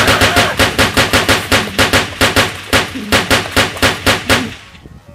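Machine-gun sound effect: rapid automatic gunfire at about five shots a second, growing weaker and dying out about four and a half seconds in.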